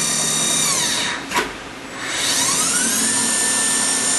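Tree VMC 1050 machining center's spindle whining steadily. It winds down and fades about a second in, gives a sharp click, then spins back up to a steady, higher-pitched whine, showing a change to a faster spindle speed.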